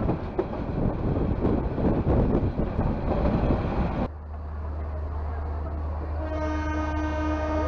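A passenger train running along the track, with rumbling and wind on the microphone. About four seconds in the sound changes abruptly to the standing train's low steady hum. About six seconds in a train horn begins a long steady note.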